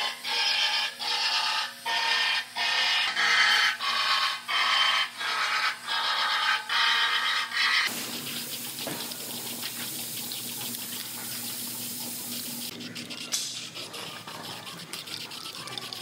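Small cordless sander run in short bursts, about one every second, each a brief rising and falling whine as it strips the coating off the panel flange where spot welds will go. About eight seconds in, an aerosol can of weld-through primer starts hissing in a long spray, followed by fainter, shorter sprays.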